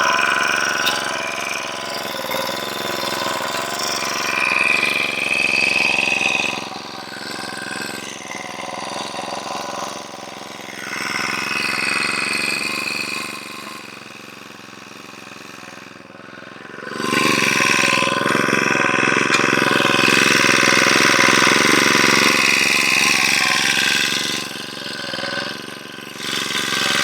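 An engine running steadily, getting quieter for several seconds in the middle and then louder again.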